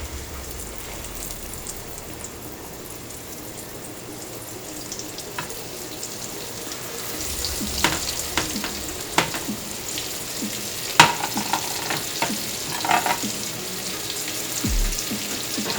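Breaded chicken pieces frying in very hot vegetable oil: a steady sizzle that grows louder about halfway through, with sharp pops and clicks scattered through the second half, one especially sharp near the two-thirds mark.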